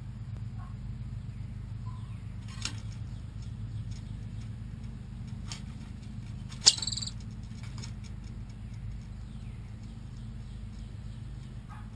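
Chipmunk giving one loud, sharp, high chip about two-thirds of the way in, with a few fainter clicks and chirps before it, over a steady low hum.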